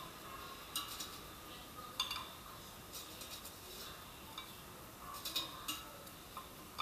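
Stainless steel tongs clicking and clinking against an air fryer basket and a ceramic plate while food is lifted out. A string of sharp, irregular clicks, busiest about five seconds in.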